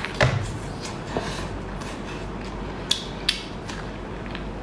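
Eating a large sauce-coated lobster claw: biting and chewing the meat, with a few sharp clicks and cracks from the shell. The loudest click comes about a quarter-second in, and two more come close together around three seconds in.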